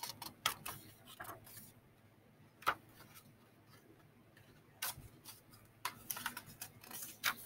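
Pages of a picture book being turned and handled: scattered clicks and paper rustles, with a sharper tap about a third of the way in and another near the end.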